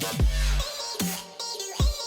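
Electronic dance music with heavy dubstep-style bass drops and a steady beat.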